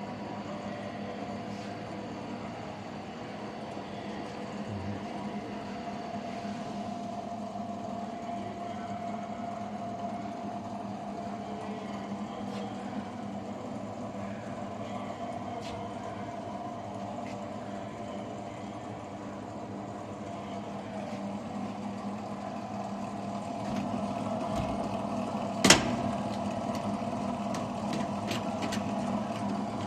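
AC TIG (argon) welder buzzing steadily while welding aluminium, with one sharp click about 26 seconds in and a few faint ticks after it.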